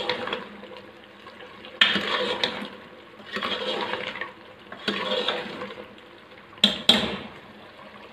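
A metal spoon stirring mutton in wet masala gravy in an aluminium pressure cooker: sloshing scrapes in strokes about every second and a half, then two sharp knocks close together near the end.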